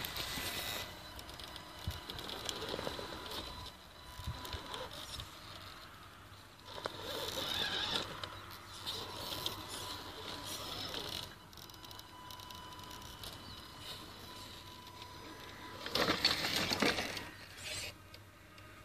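Radio-controlled scale crawler truck's electric motor and gears whirring in spurts while its tyres crunch and scrabble over dry dirt clods, louder twice, about seven and sixteen seconds in.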